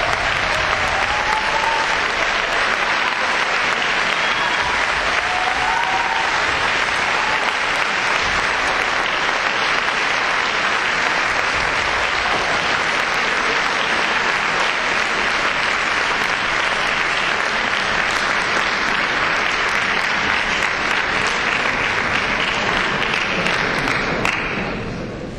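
A large concert-hall audience applauding steadily, with a few short calls rising over the clapping in the first six seconds; the applause dies down in the last second.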